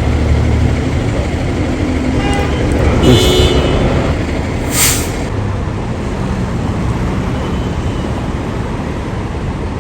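Street traffic with a heavy vehicle's engine running, a brief horn-like toot about three seconds in and a short air-brake hiss about five seconds in.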